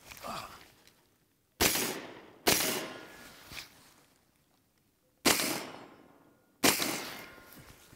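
Four shots from a Faxon Bantam 9mm pistol caliber carbine, fired in two pairs: two close together about a second and a half in, then two more a little over a second apart later on. Each shot cracks sharply and trails off in an echo.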